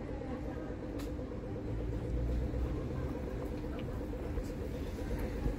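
Street traffic ambience: a steady low rumble of road traffic that swells about two seconds in, as if a vehicle is passing, over a constant fluttering hum.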